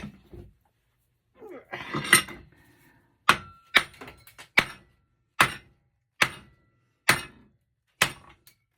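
Hammer knocking the soft cast aluminum off a copper-and-aluminum computer heat sink: a short metal clatter about two seconds in, then seven sharp, evenly paced blows, some leaving a brief metallic ring, as the aluminum comes away from the copper.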